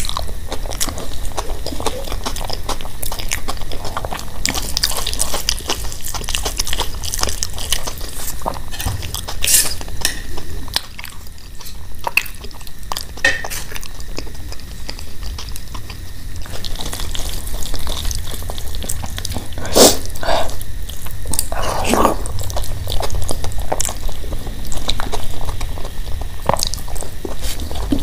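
Close-miked eating by hand: wet chewing and lip-smacking of rice mixed with mashed potato bharta, ghee and dal, with squelching of the food worked between the fingers and a spoon clinking in a steel bowl of dal. A steady low hum runs under it.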